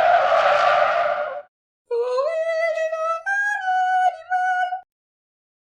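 A hissing sound for about a second and a half, then a short high, voice-like musical phrase of a few held notes that rises in steps and stops near the end.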